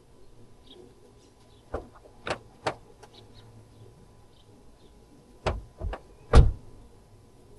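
Six sharp knocks in two groups of three, the last the loudest, from hand work on a car during a rack-and-pinion job. Faint bird chirps in the background.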